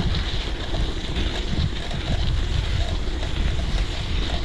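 Wind buffeting the microphone of a bike-mounted GoPro while riding a gravel bike, with a steady, uneven low rumble.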